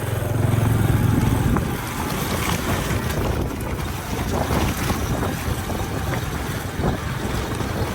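Loud wind buffeting the microphone, a rough rushing noise with a deep drone in the first second or so.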